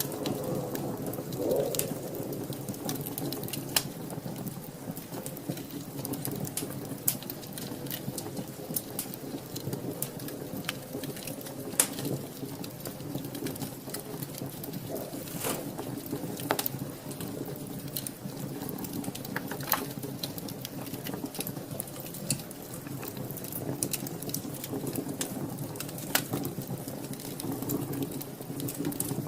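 Wood fire burning in a fireplace: a steady low hiss of the flames with frequent sharp crackles and pops from the burning logs.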